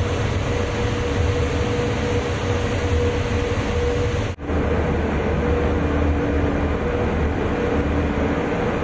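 A ship under way, heard at the stern: its engines running with a steady low rumble and a droning hum, over the rush of the propeller wash. The sound breaks off for a moment about four seconds in, then carries on the same.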